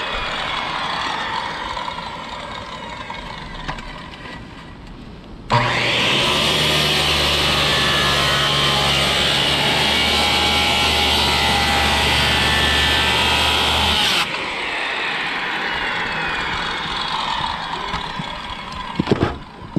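Bosch circular saw cutting through asphalt shingles and wooden roof decking. It is loudest and steadiest for about eight seconds in the middle, with falling whines as the blade slows between cuts, and a few sharp clicks near the end.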